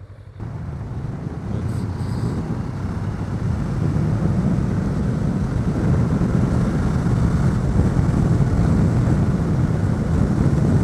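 Heavy wind noise on a helmet microphone without a wind filter, from a motorcycle riding at speed. It comes in suddenly about half a second in and grows louder.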